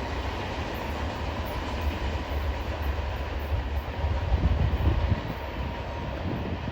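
Train rolling past, a steady low rumble of wheels on the rails.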